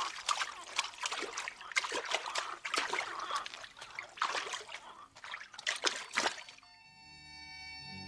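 Water splashing and dripping in irregular bursts, stopping suddenly near the end. Harmonica music then fades in with held notes.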